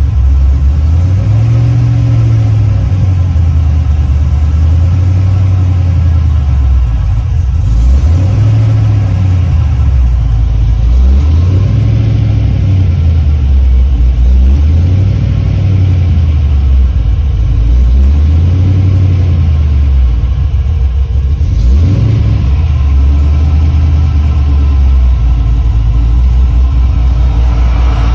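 Car engine through a loud aftermarket exhaust, revved again and again, its note rising and falling about every two and a half seconds, then settling to a steady idle near the end.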